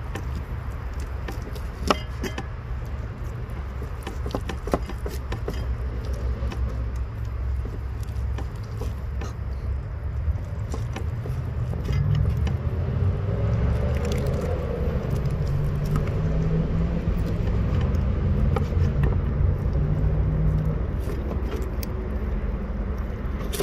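Kitchen knife clicking and scraping against a cutting board and bone while cutting apart cooked bear feet, with sharp knocks about two and five seconds in. Under it runs a steady low rumble that swells into a deeper drone from about halfway through to near the end.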